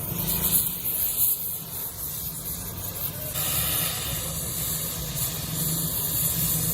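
Steady hissing noise over a low hum, with a change in texture about three seconds in.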